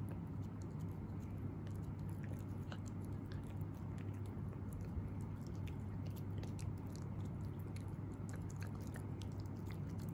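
Italian greyhound puppy chewing and gnawing a breath-care dog chew: many small, irregular clicks and crunches of its teeth. A steady low hum runs underneath.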